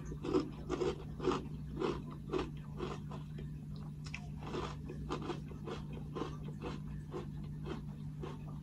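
Close-up chewing of crunchy Nestlé Gold Honey Flakes corn flakes: crisp crunches about two a second, then quicker, softer ones from about five seconds in. A steady low hum runs underneath.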